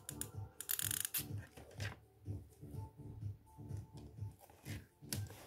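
Clicks and rustling from a hot glue gun being handled as a new glue stick is fed in, during the first two seconds. Under it runs faint background music with a steady low beat of about two pulses a second.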